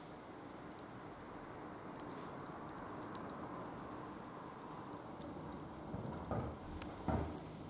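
Wood fire burning in a barbecue grill, crackling with scattered sharp snaps over a steady hiss. A few dull knocks come near the end.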